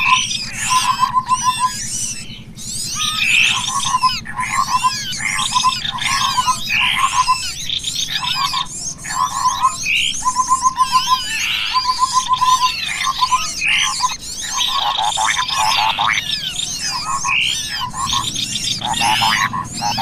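Dense chorus of songbirds, a cucak kopi lure call mixed with small birds, all calling over one another. A short, rapid low trill repeats about every second through the first two-thirds, under a constant tangle of high chirps, whistles and warbles.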